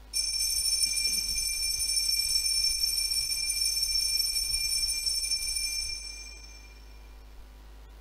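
Altar bells ringing at the consecration, marking the elevation of the host: a cluster of high, steady bell tones that starts suddenly, holds for about six seconds, then fades out.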